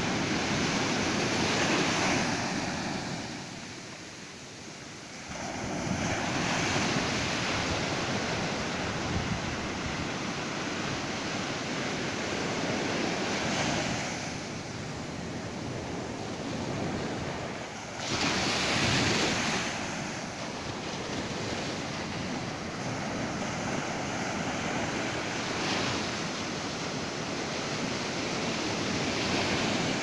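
Atlantic surf breaking on a sandy beach, a steady wash of water that swells every several seconds as each wave comes in. There is a quieter lull about four seconds in, and the loudest surge comes a little past the middle.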